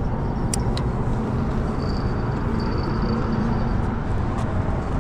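Steady low outdoor rumble, with two faint clicks from a spinning fishing reel being handled about half a second in.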